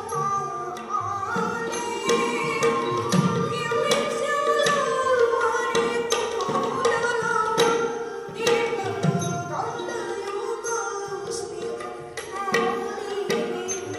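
Manipuri classical dance accompaniment: a melody over a steady drone, with hand-drum strokes and sharp cymbal-like clicks keeping the rhythm.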